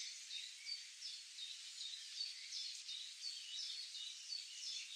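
Birds and frogs calling in a natural ambience: many short high chirps repeating several times a second over a faint steady hiss.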